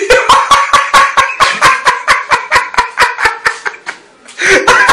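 High-pitched, rapid laughter in short, regular "ha" pulses, about five or six a second. It breaks off for a moment near the end, then starts again.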